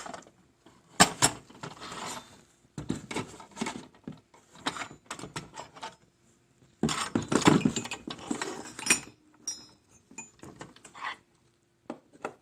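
Bi-metal hole saws fitted with hex-shank impact arbors being handled in their carry case: irregular metal clinks, clicks and rattles, with a longer stretch of clattering about seven seconds in.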